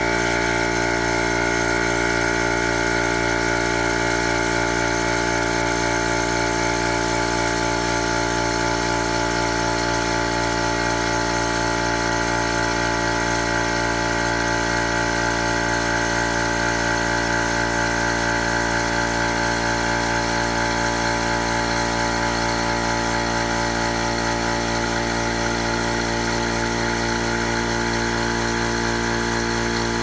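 Senco PC1010 1-gallon, half-horsepower oil-free air compressor running steadily: an even, unchanging motor-and-pump hum with a higher whine, at about 83 dB.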